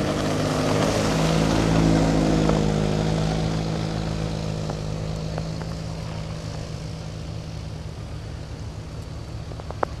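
A motor vehicle's engine running with a steady hum over a rushing noise, growing louder for about two seconds and then slowly fading away. A sharp click comes near the end.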